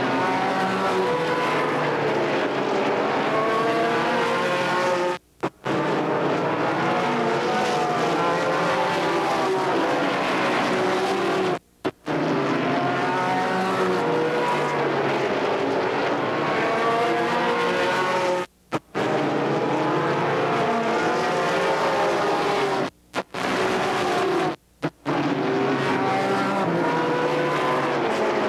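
Field of ARCA stock cars' V8 engines running at racing speed around the oval, several at once, each rising and falling in pitch as the cars pass by. The sound cuts out for a moment five times.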